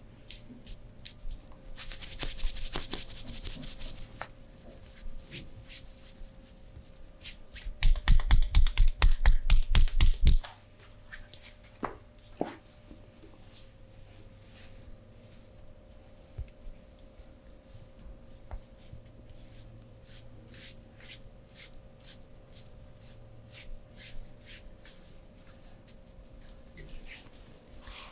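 Hands massaging a person's body. A couple of seconds in there is a rubbing hiss of palms on skin, then near the middle comes a rapid run of loud patting or pounding strokes lasting about two and a half seconds, with light taps and skin sounds scattered through the rest.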